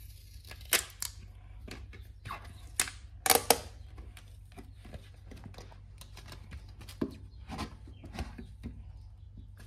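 Irregular plastic clicks and knocks as a clear plastic toy jar of Squigz suction-cup pieces is handled and turned over, with its tight lid being worked at; the loudest knocks come about a second in and around three seconds in.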